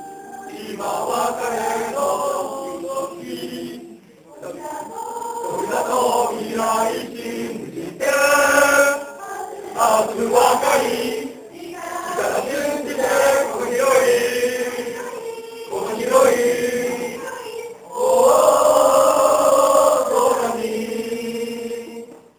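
A group of young men and women singing together in unison, in several phrases with short breaks between them. The last note is held long and the singing stops near the end.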